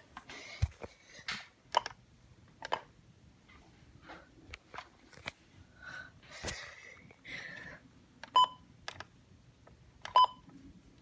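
Scattered handling clicks and knocks on a weather radio, then two short high electronic key beeps about two seconds apart near the end, from its buttons being pressed.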